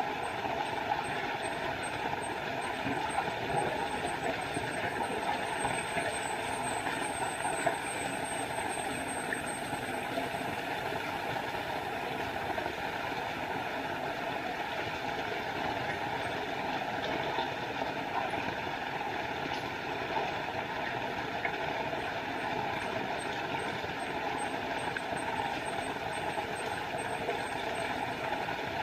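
Small forest waterfall: water falling and splashing in a steady rush. A high, rapidly pulsing trill sounds over it for the first ten seconds and again near the end.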